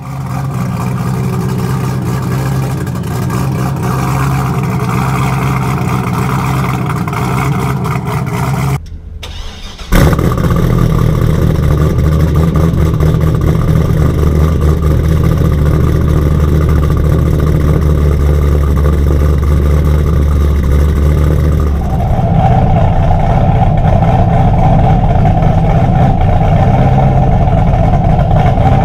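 Modified C6 Corvette V8 idling through a Billy Boat PRT axle-back exhaust, fed by headers and an x-pipe with no catalytic converters, with a BTR cam. About nine seconds in the note drops away for roughly a second. It comes back suddenly and louder at about ten seconds, then runs on steadily, its tone changing around twenty-two seconds in.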